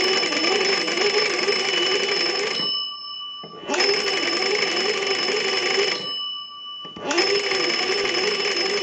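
Kellogg wooden wall crank telephone's twin bells ringing as its hand-cranked magneto is turned, in three spells of about two to three seconds with short pauses between. A low wavering hum runs under the ringing.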